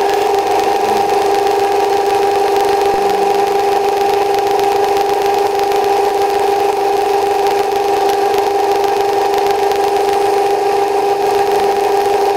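A small metal-turning lathe running at a steady speed, its motor and gearing giving an even, unchanging whine.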